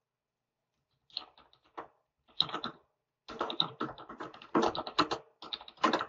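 Typing on a computer keyboard: a few scattered keystrokes about a second in, then a steady run of key clicks from about three seconds in.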